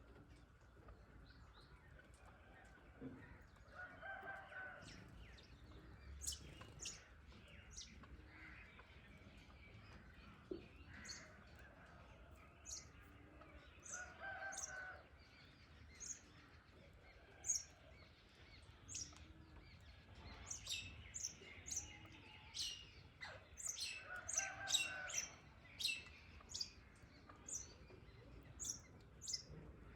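Birds chirping: many short, high chirps that grow busier in the second half, with a lower, fuller call about a second long heard three times, roughly ten seconds apart.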